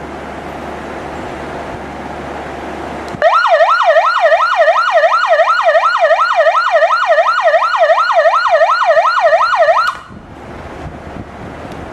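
High-power 220 V mains alarm siren sounding a fast warbling wail, sweeping up and down about three times a second. It switches on about three seconds in and cuts off suddenly near the end.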